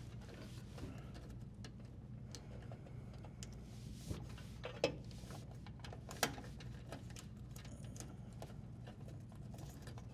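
Faint clicks and rustling of insulated wires and plastic wire nuts being handled and pushed into a dishwasher's electrical junction box, with two sharper clicks about five and six seconds in, over a low steady hum.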